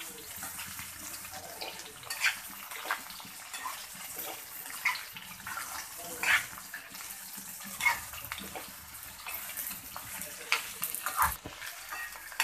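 Freshly added chopped okra sizzling in hot oil in a metal kadhai while a spatula stirs it, scraping and knocking against the pan every second or two.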